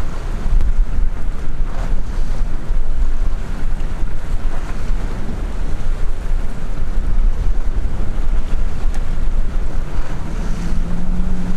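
Wind buffeting the microphone over choppy water lapping at a small skiff. About ten seconds in, a steady low motor hum comes in.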